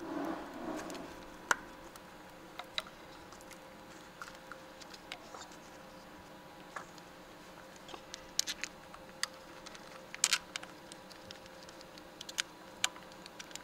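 Scattered light clicks and taps from gloved hands and a small hand tool working parts on a V6 engine's valve cover and intake, a few coming in a quick cluster past the middle. A short rustle at the start, over a steady faint hum.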